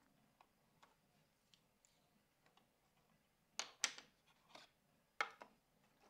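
Light plastic clicks and taps as a plastic bird feeder and its water tray are handled: a couple of sharp clicks about three and a half seconds in and two more a little after five seconds, with a few faint ticks before them.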